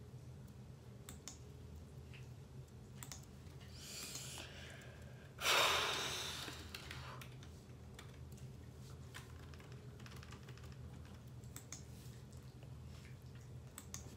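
Scattered light clicks of typing on a keyboard over a low steady hum. A softer rush of noise comes about four seconds in, then a sudden loud burst of noise a little after five seconds that fades over about a second and a half.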